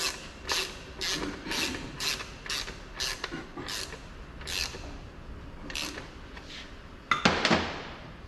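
Hand ratchet wrench clicking in short strokes, about two a second, as bolts are run down on a truck gearbox casing, then a few slower strokes. A sharp metal clank comes about seven seconds in and is the loudest sound.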